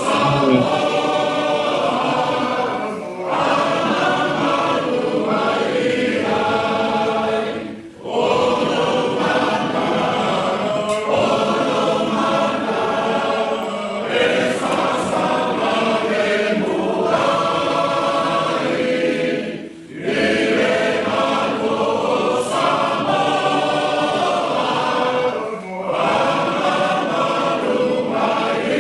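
A large group of voices singing together in chorus, in long sustained phrases with brief breaks between them.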